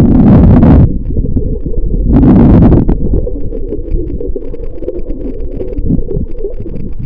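Muffled underwater noise picked up by a submerged camera: two loud rushing bursts in the first three seconds, then a lower steady rumble.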